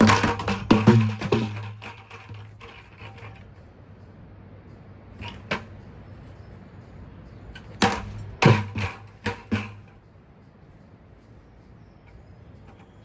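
Five-gallon plastic buckets being smashed: a burst of rapid clattering hits at the start, two single knocks in the middle, and another burst of hits later, with a low hum under the bursts.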